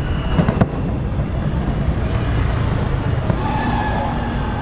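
City street traffic noise with crowd murmur, and one sharp crack about half a second in. A steady pitched tone joins about three seconds in.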